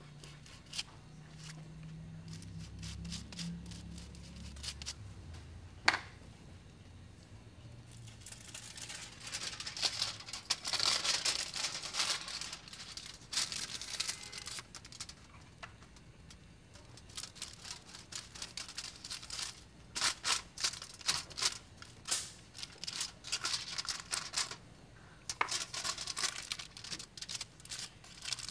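Aluminium highlighting foils crinkling and rustling in quick bursts as they are handled, folded and pressed around sections of hair. There is one sharp click about six seconds in.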